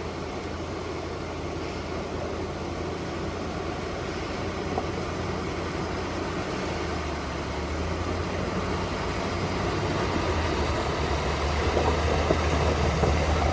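Off-road vehicle's engine running at low revs while driving slowly. The engine note steps up about halfway through, and the rough noise of the drive grows louder toward the end.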